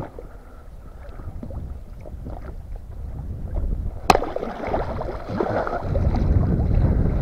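Water sloshing and splashing against an inflatable boat as a big catfish thrashes at the surface. About four seconds in there is a single sharp knock, a wooden club striking the fish to stun it. After it the splashing grows louder.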